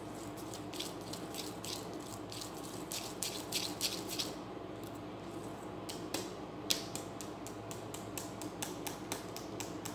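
A metal utensil clinking rhythmically against a stainless steel mixing bowl as pancake batter is stirred, about three to four clicks a second. The clicking pauses briefly past the middle, then resumes more sparsely with one louder knock.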